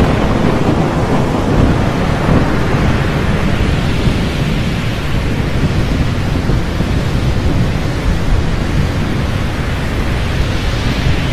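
Storm sound effect: a loud, steady rumble like thunder with a hiss like heavy rain.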